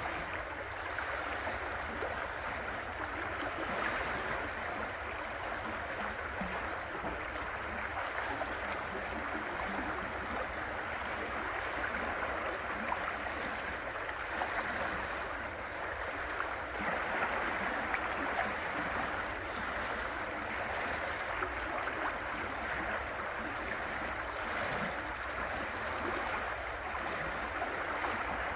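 River water running and babbling over rocks, a steady continuous rush.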